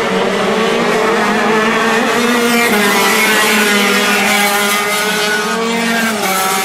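Several racing kart engines running at high revs at once as a pack of karts goes by, their overlapping pitches rising and falling as the drivers lift off and accelerate through the corners.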